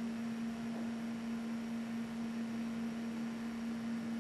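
A steady low hum, a single unchanging tone, over faint hiss.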